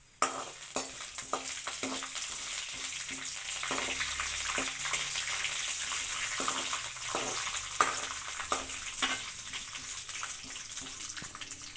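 Chana dal and mustard seeds sizzling in hot oil in a kadai while being stirred with a spatula that knocks against the pan about once or twice a second. This is the tempering stage, frying the dal until golden. The sizzle starts suddenly just after the start.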